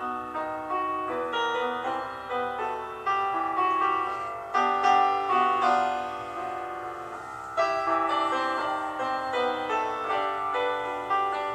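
Background piano music: a steady flow of struck notes, each fading after it sounds.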